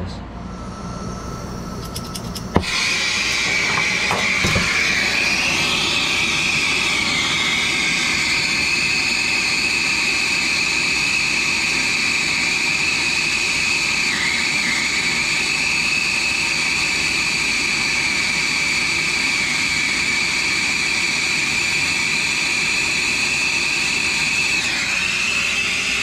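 Brazing torch flame hissing steadily with a high whistling tone while it heats a copper refrigerant line joint. It starts suddenly with a click about two and a half seconds in.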